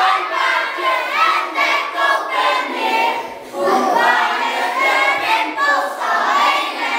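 A group of children singing together, many voices at once.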